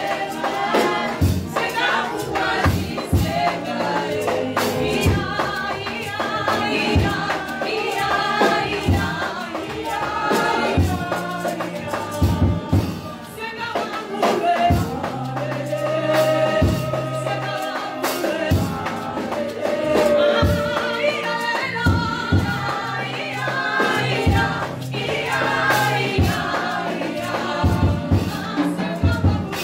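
Gospel worship music: a choir of voices singing over drums keeping a steady beat.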